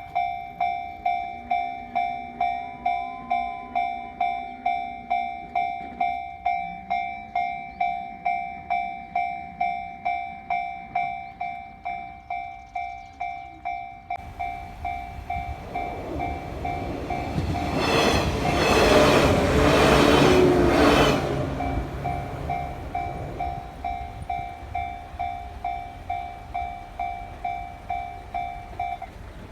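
Japanese railroad crossing bell ringing its repeated electronic ding, about one and a half strokes a second, while a train passes through the crossing, loudest about two-thirds of the way in. The bell stops shortly before the end.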